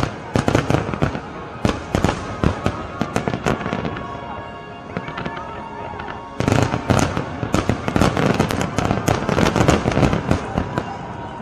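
Fireworks bursting and crackling in rapid volleys, a dense spell at the start, a lull, then a second dense spell from about six and a half seconds in until shortly before the end.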